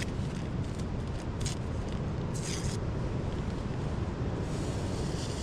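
Storm wind blowing hard through the treetops: a steady low rumble with a few brief higher rushes of gusts.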